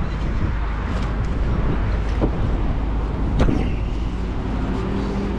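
Strong wind buffeting the microphone: a steady, heavy low rumble, with a couple of brief knocks.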